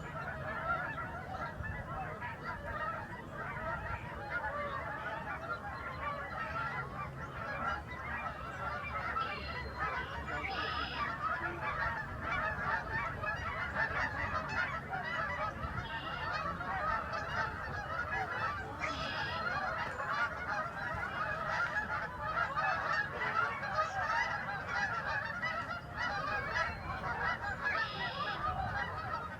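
A large flock of migrating wild geese calling together: a dense, unbroken chorus of overlapping honks, with a few louder, higher calls standing out now and then.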